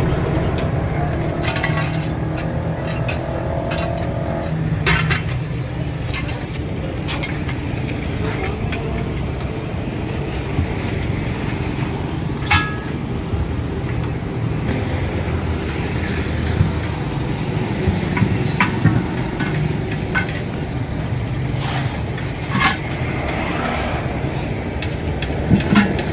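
Steady low vehicle rumble, with occasional sharp metal clinks and knocks from steel tire tools working the bead of a tubeless truck tire off its steel rim.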